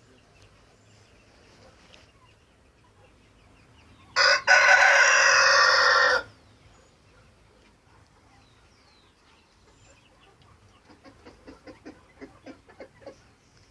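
A rooster crowing once, loud and about two seconds long, followed near the end by a run of soft short calls, about four a second.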